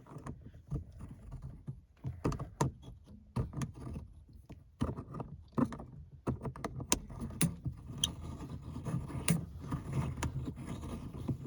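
Irregular plastic clicks, taps and rattles of an aftermarket shift knob and boot being pushed and worked onto a car's automatic gear-selector lever.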